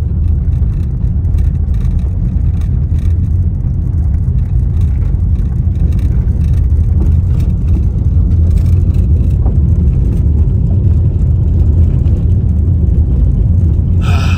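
Steady low rumble of a car driving on an unpaved dirt road, tyre and road noise heard from inside the cabin, with faint rattles.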